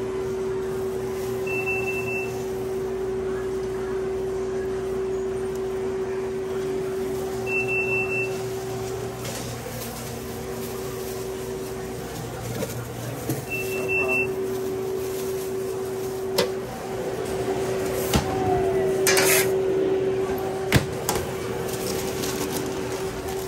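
Steady hum of restaurant equipment with a short electronic appliance beep three times, about six seconds apart. Later come a few sharp clicks and knocks and a brief hiss as the sub on its mesh tray is put to the toaster oven.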